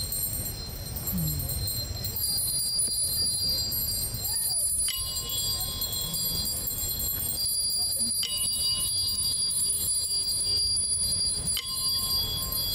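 A small hand-held bell struck three times, a few seconds apart, each stroke ringing on with a clear, sustained tone until the next.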